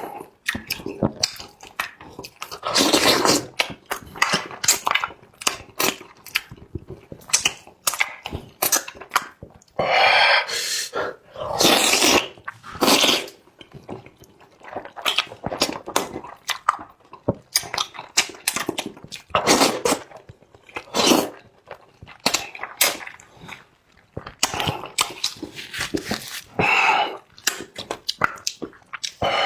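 Close-miked eating: a person chewing and slurping spicy enoki mushrooms, with many quick wet mouth clicks and several longer slurps.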